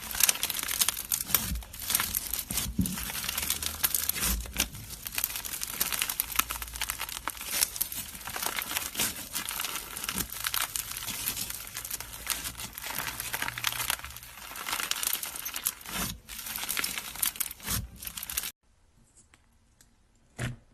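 Slime being squeezed and stretched by hand close to the microphone: a dense run of crackling, crinkling and sticky popping with soft low squelches. It cuts off abruptly near the end, leaving one faint click.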